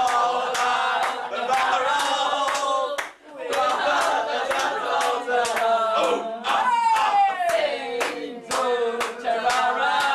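A small group of people singing and shouting together over steady hand-clapping, about two to three claps a second. The singing breaks off briefly about three seconds in, and partway through one voice slides down in a long falling cry.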